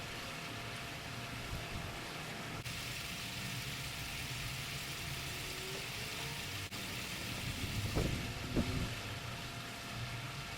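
A steady low mechanical hum with a thin constant tone over it, and a couple of short knocks about eight seconds in.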